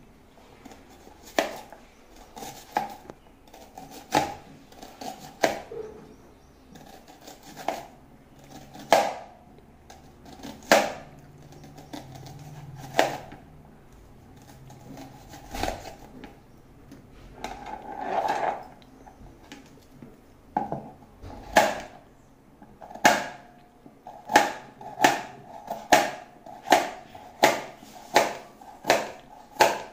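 Kitchen knife slicing an onion and then a carrot on a plastic cutting board: sharp knocks of the blade striking the board, a second or two apart at first, then quicker and more regular near the end.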